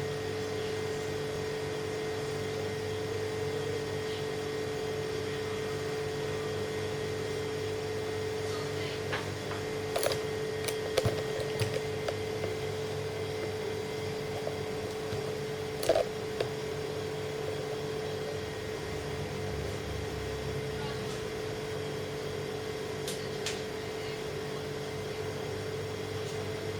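A steady machine hum with a constant mid-pitched tone, broken by a few short sharp clicks and knocks about ten, eleven and sixteen seconds in.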